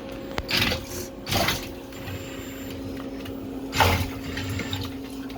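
A small electric motor hums steadily at one constant pitch, with three short clattering handling noises over it.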